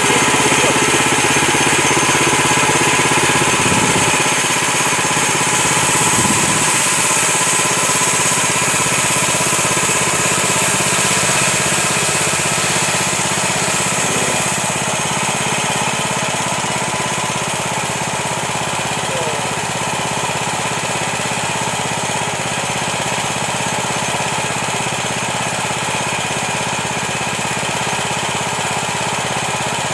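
Small engine of a home-built band sawmill running steadily while the band blade saws through a honey mesquite log, with a strong high hiss that eases a little about halfway through.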